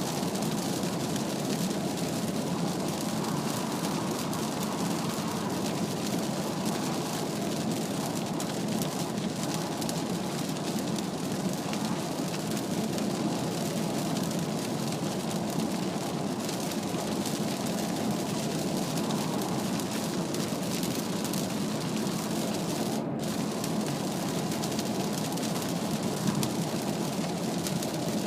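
Steady cabin noise of a Mazda CX-3 at expressway speed in heavy rain: tyres hissing on the wet road and rain on the body, heard from inside the car.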